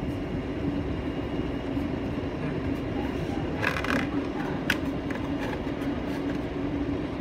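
Hatari centrifugal ceiling exhaust fan running steadily, close up: a low hum over rushing air noise. A brief rustle and a click come about midway.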